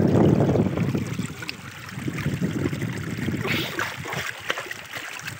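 Wind noise on the microphone, strongest in about the first second, then water trickling and running along a shallow channel in the tidal mud.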